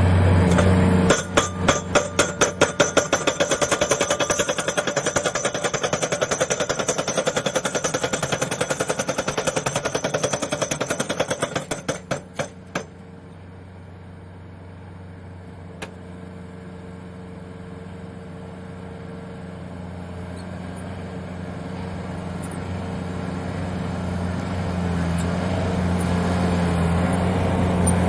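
Hydraulic impact hammer of an Orteco Pick & Ram 1200J crawler pile driver striking a pile in a rapid train of blows, several a second, over its engine's steady running. About halfway through the blows stop, and the machine's engine runs on alone, slowly growing louder.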